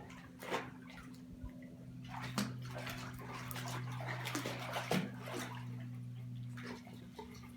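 Water splashing and sloshing in a tub in irregular bursts, heaviest in the middle, over a steady low hum.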